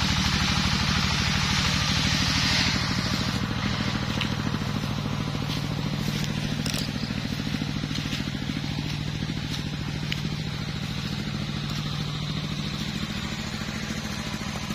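Stihl MS381 two-stroke chainsaw idling steadily, with a hiss over it that drops away about three seconds in.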